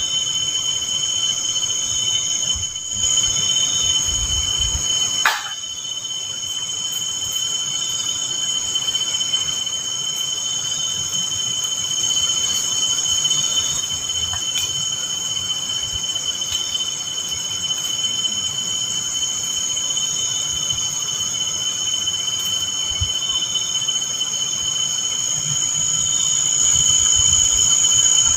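Crickets and other night insects chirring steadily, several high trills layered together without a break. A single short knock sounds about five seconds in.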